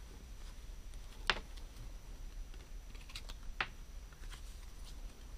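Scattered light clicks and taps as hands handle a plush doll, two sharper ones about a second in and at about three and a half seconds.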